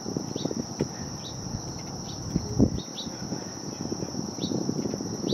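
Late-summer chorus of crickets in the marsh grass, a steady high trill, with short falling chirps every half second to a second and irregular low rumbling bumps underneath.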